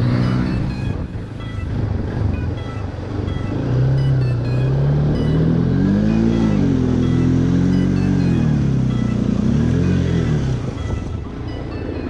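Motorcycle engine running on the move, its note rising and dipping several times with the throttle, loudest in the middle stretch. Faint music plays underneath.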